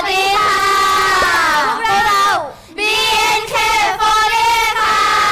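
A group of young women calling out their greeting together in a drawn-out, sing-song chant, in two phrases with a short break in the middle.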